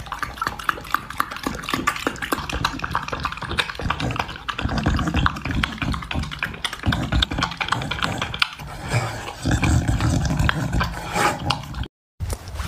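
A dog lapping milk from a bowl: a quick, continuous run of wet lapping clicks mixed with heavy nose breathing. It cuts off abruptly near the end.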